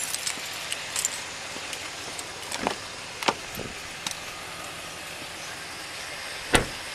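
A few sharp clicks and knocks over a steady background hiss, the loudest a single knock near the end.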